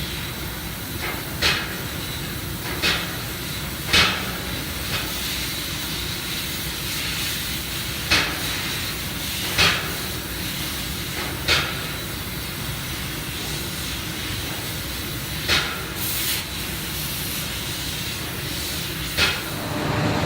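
CNC laser cutter cutting stainless steel sheet: a steady hiss of assist gas from the cutting head, broken by short, sharp bursts every few seconds at uneven intervals.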